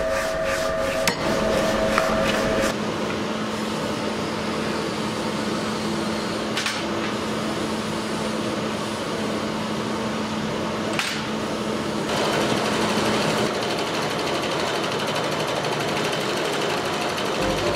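A quick run of hammer strikes on hot steel over an anvil, with a ringing tone, in the first few seconds. Then a steady workshop hum with two single knocks, and a louder machine noise from about two-thirds of the way through.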